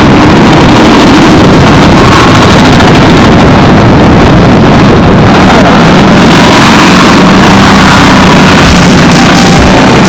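Motor scooter running along a street, its engine under loud, steady wind rush on the microphone.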